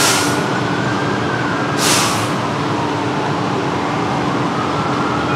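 An emergency-vehicle siren wailing slowly down and back up over street traffic and a steady engine hum, with two short hisses about two seconds apart.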